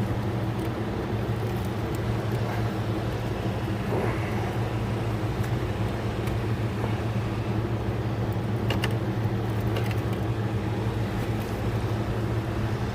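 Steady low machine hum, with a few faint clicks and rustles over it, the clearest about nine seconds in.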